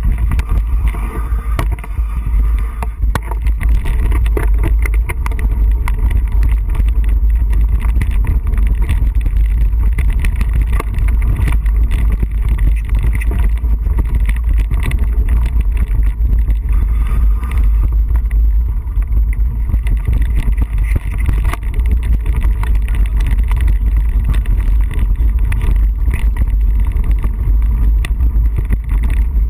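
Wind buffeting the microphone of a camera riding along on a mountain bike, a steady deep rumble, with frequent knocks and rattles as the bike bounces over the rocky dirt trail.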